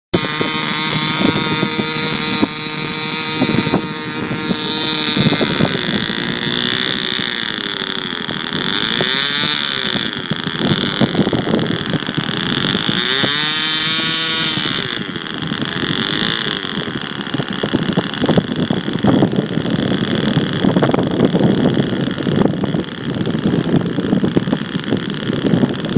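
Small nitro glow-fuel model aeroplane engine running with a high, buzzing note, its pitch dropping and rising again several times as it is throttled up and down.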